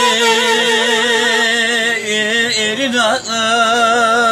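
Eastern Anatolian folk music: a wavering melodic line over a steady held drone note, with no drum. About three seconds in, the melody breaks with a quick falling slide, then carries on.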